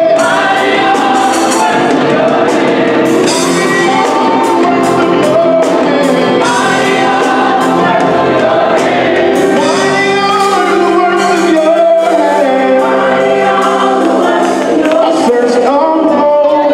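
Gospel choir singing with a live band of electric bass guitar, drum kit and organ.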